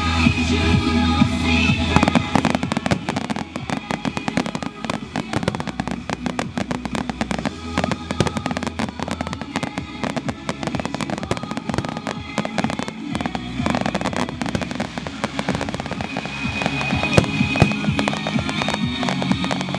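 Fireworks display: a dense, rapid run of bangs and crackling throughout, with music playing underneath.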